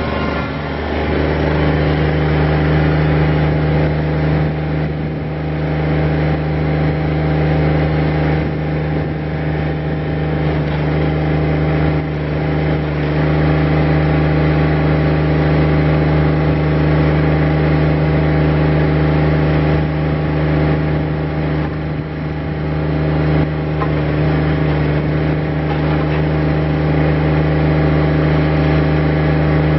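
Kubota BX25D compact tractor-loader-backhoe's three-cylinder diesel engine running steadily. It picks up speed about a second in, then holds an even, constant speed.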